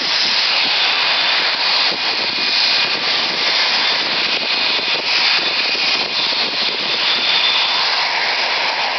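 Boeing 727's Pratt & Whitney JT8D low-bypass turbofans running loud and steady as the trijet departs: a dense jet noise with a faint high whine over it.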